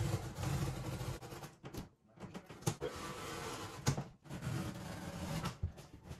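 Knife cutting through a corrugated cardboard box: scratchy slicing strokes with a few sharp clicks and short pauses between cuts.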